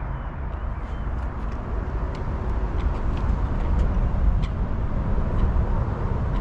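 Wind buffeting the microphone: a steady low rumble that grows somewhat louder, with a few faint, sharp clicks over it.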